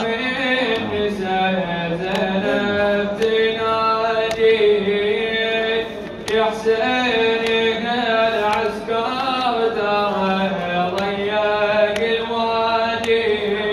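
A male reciter chanting a Shia nawha lament solo into a microphone, in a slow melismatic line with long held notes.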